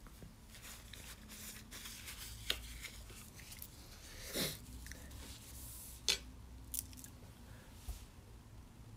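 A few faint, short clicks and soft rustles over quiet room tone, spread through with about five small ticks and one brief swish near the middle.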